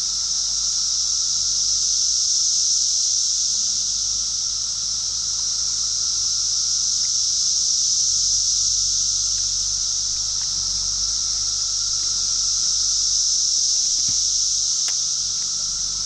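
A chorus of insects keeps up a steady, high-pitched buzz throughout, with a fainter, lower steady tone beneath it.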